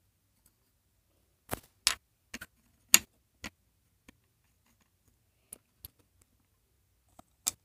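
Scattered light clicks and knocks of small objects being handled, about ten in all at uneven intervals, with one sharper knock about three seconds in.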